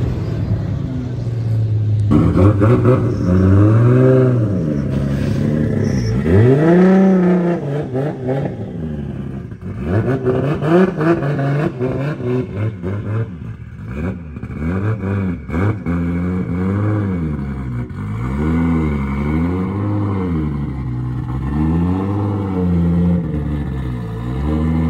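Turbocharged 1.5JZ inline-six in a Nissan S13 240SX drift car, revved again and again, its note rising and falling every second or two.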